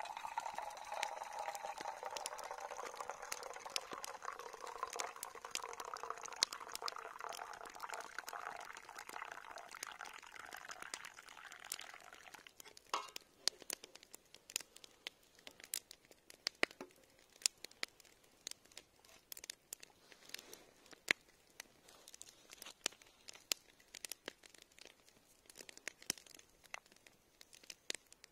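Tea being poured in a steady stream from a titanium camping kettle into a metal mug. The pouring stops about twelve seconds in. After it come scattered light clicks and taps.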